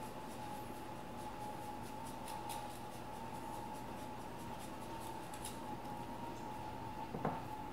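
A block of Parmesan being grated on a handheld rasp grater: faint, quick scraping strokes over a steady faint hum, with a light knock near the end.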